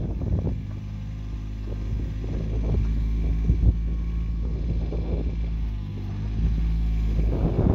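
Takeuchi TB016 mini excavator's diesel engine running under hydraulic load as the machine slews and works its boom and arm, the engine note dipping and picking up again a few times.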